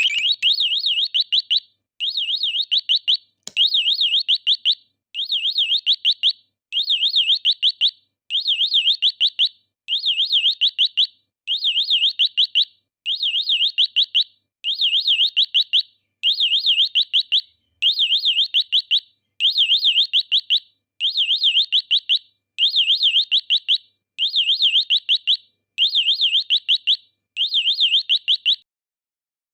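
Electronic bird-sound chip (chip-on-board sound IC) playing a synthetic warbling bird chirp, a rapid high trill that repeats in identical bursts of about a second, one every second and a half or so.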